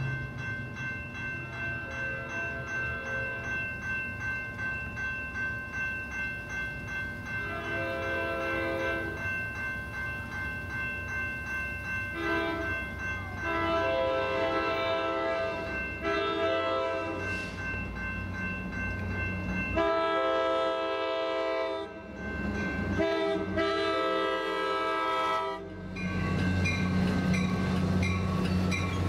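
Grade crossing bells ringing steadily while an approaching Coaster commuter train's diesel locomotive sounds a series of horn blasts, long and short, from about seven seconds in. Near the end the horn stops and the locomotive's diesel engine comes in as a loud low rumble as it passes alongside.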